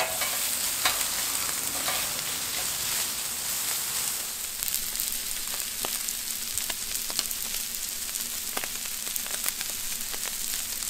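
Shredded pulled pork frying in bacon grease on a hot steel flat-top griddle, its own fat rendering out: a steady sizzling hiss with scattered crackles and pops.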